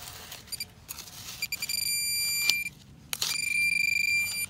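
Metal-detecting pinpointer sounding its high electronic alarm tone as it is probed into the soil. A few quick beeps about a second and a half in turn into a continuous tone, which breaks off and comes on again a little after three seconds, signalling metal at the tip. Soil scraping against the probe early on.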